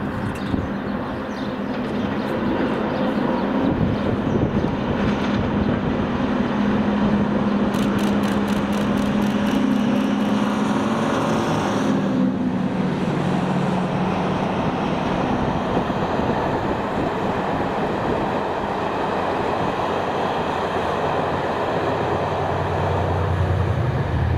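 Diesel locomotive working hard under power, its engine note steady over the noise of the train. About eight seconds in comes a rapid run of clicks lasting a couple of seconds. Near the end a lower engine note takes over.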